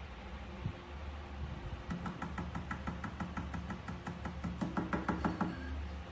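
Knuckles rapping on a glass tabletop: a rapid run of light knocks, about six a second, starting about two seconds in and growing louder before stopping near the end.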